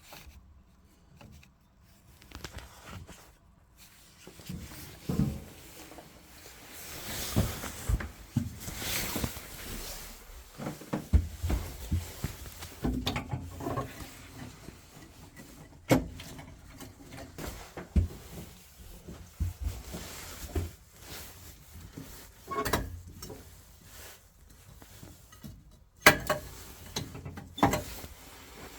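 Handling noise from work inside an opened combi boiler: scattered sharp clicks and knocks with rustling, no steady running sound.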